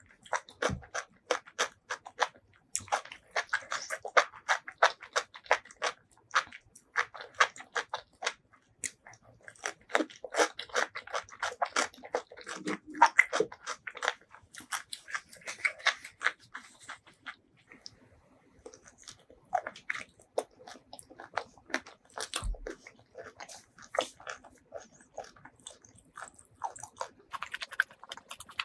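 Close-miked chewing of spicy fire chicken noodles and enoki mushrooms: many quick, clicky mouth sounds, easing off briefly about two-thirds of the way through.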